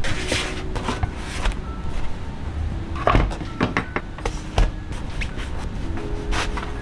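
Scattered knocks and scrapes of kitchen handling: a spatula against a nonstick frying pan, a crunchwrap set down on a bamboo cutting board, and a knife cutting into it near the end. Faint background music runs underneath.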